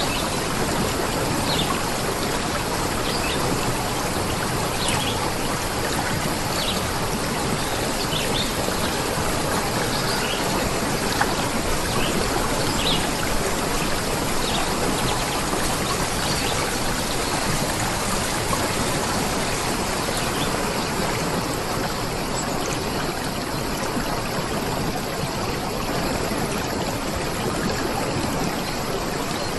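A stream of water flowing in a steady, even rush, with scattered brief high ticks over it.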